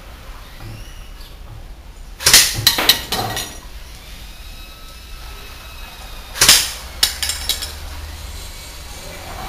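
Cyma CM.048SU airsoft electric gun (AKMSU replica) firing twice, about four seconds apart; each time a sharp crack is followed by a few quicker clicks.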